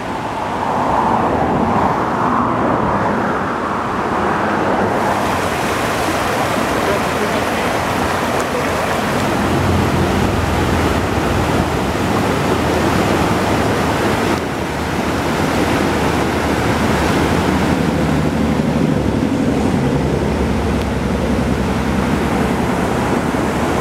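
Steady rushing of a mountain stream, flowing water as an even, loud hiss that grows brighter about five seconds in.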